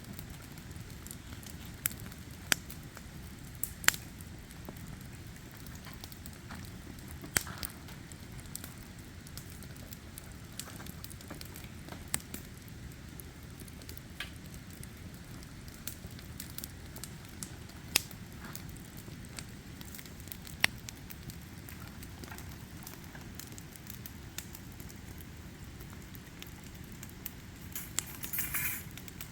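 Wood fire crackling, with sharp, irregular pops every few seconds over a low, steady rumble, and a short hiss about a second before the end.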